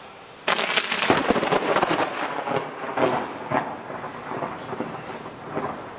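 A close thunderclap: it breaks suddenly about half a second in and crackles for a few seconds, then thins into scattered cracks.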